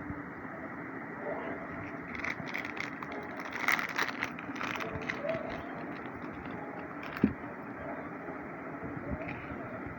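Jewellery packaging being handled: a run of crinkling and clicking for a few seconds, then a single sharp knock about seven seconds in, over a steady background hum.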